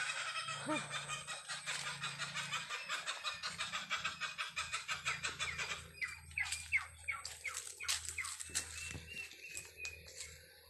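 Chickens clucking: a fast run of short calls, then sharper separate chirps from about six seconds in, fading near the end.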